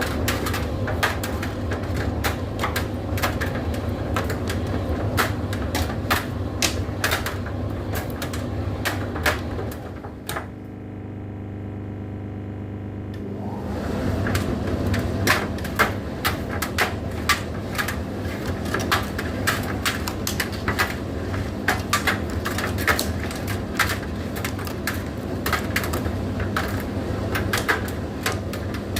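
Indesit IDC8T3 condenser tumble dryer running: a steady motor hum under a fast, irregular run of clicks and knocks. The knocking stops for about three seconds a little after ten seconds in, leaving a steadier whirring tone, then starts up again.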